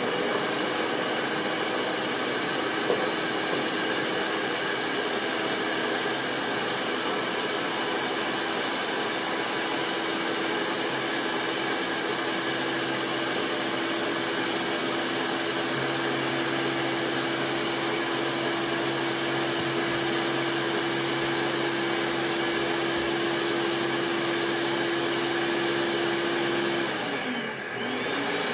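Countertop blender motor running steadily at high speed, blending a thick mix of fresh roots, citrus and sea moss with water. Near the end the motor briefly slows down and then speeds back up.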